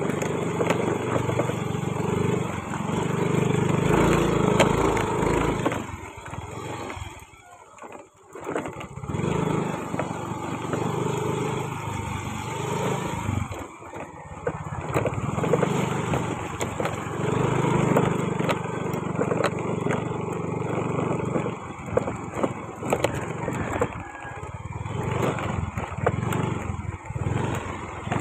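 Yamaha Mio i 125 scooter's single-cylinder four-stroke engine running under varying throttle while riding over a rocky dirt track, with knocks and rattles from the bumps. The engine sound falls away briefly about eight seconds in and again near fourteen seconds.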